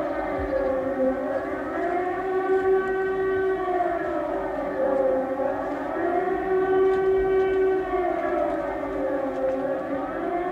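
Air-raid siren wailing, its pitch rising and falling in slow waves about every four seconds, over a steady lower tone.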